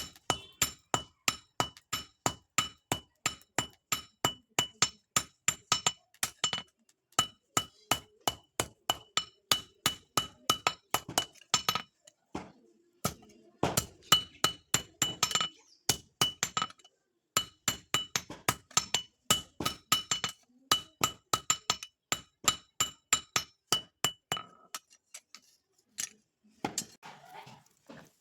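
Hand hammer striking steel on an anvil in forging a khurpi blade: steady, ringing blows about three a second, in runs with short pauses, growing lighter and sparser near the end.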